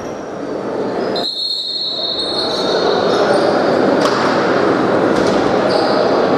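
Echoing indoor sports-hall noise: a steady wash of crowd and player voices with the hall's reverberation, which swells about two and a half seconds in.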